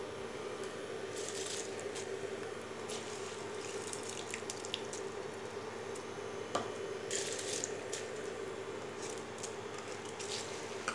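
Large pot of salted, spiced water boiling on the stove for parboiling basmati rice, bubbling and crackling steadily, with a steady hum underneath.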